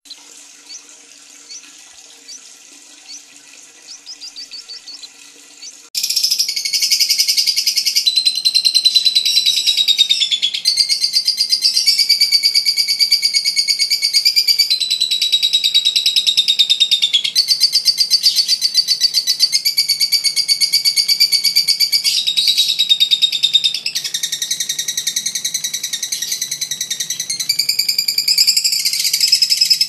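A lovebird's long 'ngekek' song: fainter scattered chirps for the first six seconds or so, then a loud, unbroken, rapid high-pitched chattering trill that goes on with only brief pauses and small shifts in pitch.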